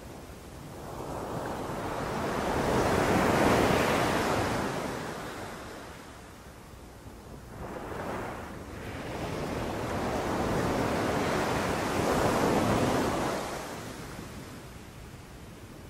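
Sea waves breaking on a beach. The surf rises and falls in slow surges: a big wave washes in about three seconds in, a smaller one around eight seconds, and another big one about twelve seconds in, with quieter wash between.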